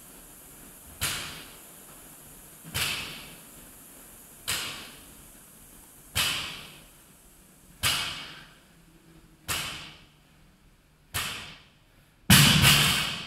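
Barbell loaded with bumper plates set down on a rubber gym floor on each deadlift rep: seven evenly spaced thuds with a short echo, about one every second and a half, then a louder, longer clatter near the end.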